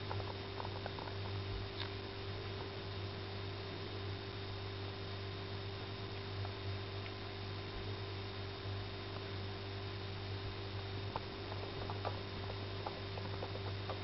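Mother cat purring steadily as a low even hum while her kittens nurse, with a few faint clicks scattered through it.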